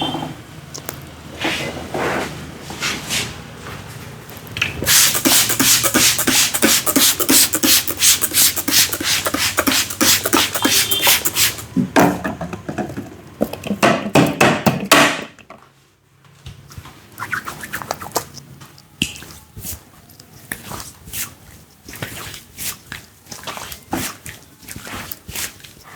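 Rapid, rhythmic slapping and tapping of a barber's hands on a person's head during a vigorous head massage. It is densest and loudest through the middle, stops abruptly, then goes on as quieter, scattered pats and rubs.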